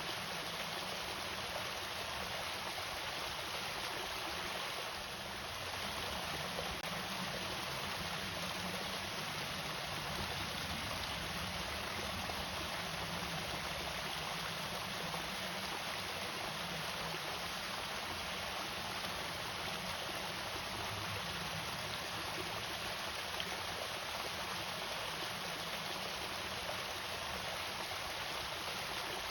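Water falling steadily over a small irrigation waterfall, an even, unbroken splashing.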